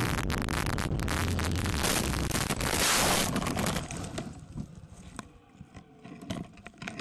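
Wind rushing over a vehicle-mounted camera's microphone at road speed, with a louder, harsher burst of noise about three seconds in as the crash happens. From about four seconds the sound falls away to scattered knocks and scrapes as the camera tumbles across the ground.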